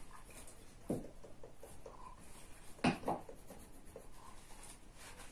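Faint scratching of a pen drawing on paper, with paper scraps shuffled on a table. Two soft knocks on the table stand out, about one second in and again just before three seconds.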